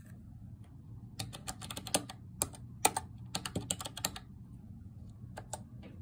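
Plastic keys on a Miwa AL5H keypad DTU (AL5HDTU1) handheld lock programmer being pressed: a quick run of clicks between about one and four seconds in, then two more near the end. This is the staff code and password being keyed in, each followed by Enter, to log into the programmer.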